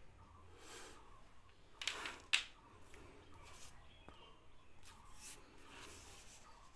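Faint scuffs and rustles of a person moving on hands and knees close to a phone's microphone, with a sharp tap about two and a half seconds in.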